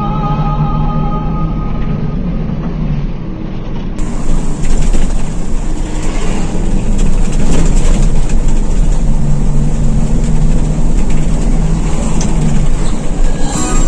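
Intercity bus cabin noise while driving at speed: a steady engine drone under road and wind noise. About four seconds in it abruptly becomes louder and fuller.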